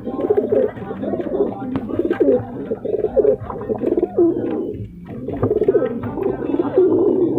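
Several domestic pigeons cooing, their calls overlapping continuously, with a brief lull about five seconds in.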